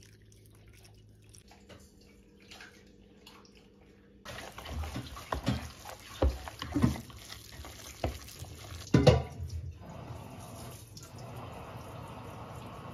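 Chopsticks stirring minced pork and vegetable filling in a stainless steel bowl, with irregular wet squelches and knocks against the bowl, loudest about nine seconds in. After that, steady running water.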